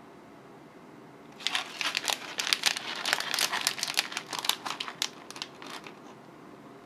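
Plastic candy-bar wrappers crinkling as two packets are handled and turned over in the hands. The crinkling starts about a second and a half in and dies away about six seconds in.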